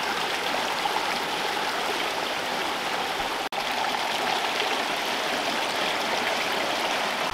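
Spring-fed stream running steadily over rocks, a constant rush of water, with the water breaking around a metal pot held in the current. The sound cuts out for an instant about three and a half seconds in.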